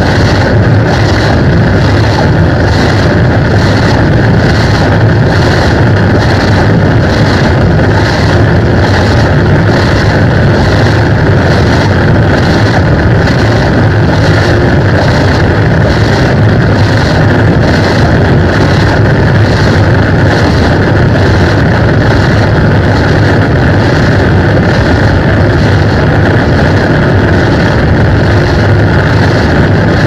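Loud, dense drone from a guitar effects pedalboard, heavily distorted and sustained without a break, with an even pulse in the upper range about once a second.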